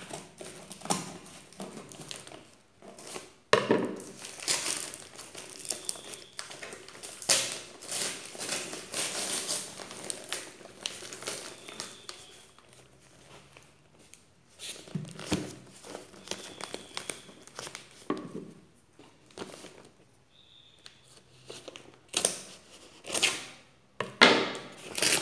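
Brown kraft-paper parcel wrapping crinkling, crackling and tearing as it is cut with scissors and pulled off a cardboard box, in irregular bursts with a few short pauses.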